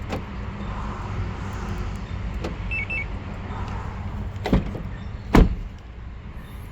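Car running with a steady low rumble; about three seconds in a short two-tone electronic beep, then two loud clunks about a second apart.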